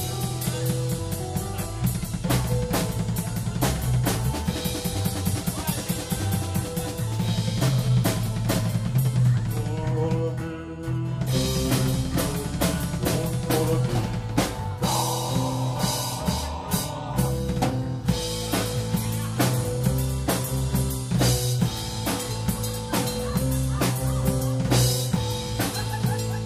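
Live dark-folk band playing: a drum kit keeps a steady beat under acoustic guitar and sustained low notes.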